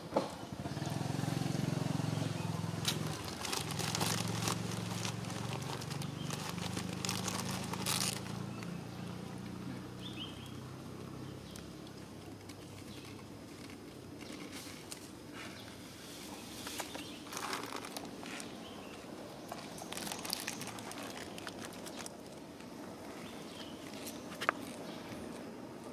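Outdoor ambience with scattered short crackles and rustles, like dry leaves and debris being disturbed, and a low steady hum for about the first ten seconds.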